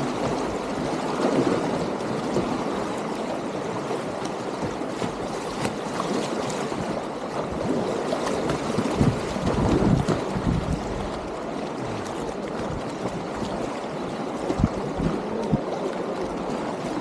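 Whitewater rapids rushing steadily around a kayak, with low rumbles of wind on the microphone, heaviest around the middle.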